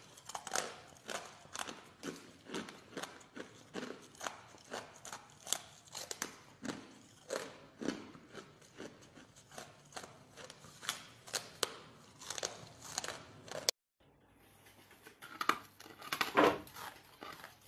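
Teeth biting and chewing pieces of frozen ice, a rapid run of sharp crunches several times a second. The sound drops out completely for an instant about fourteen seconds in, then the crunching resumes louder.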